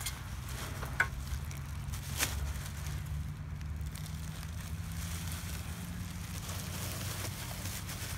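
Shovel blade skimming along dry, thatchy ground and slicing through a puncture vine's stem: faint scraping and crackling, with two sharp clicks about one and two seconds in.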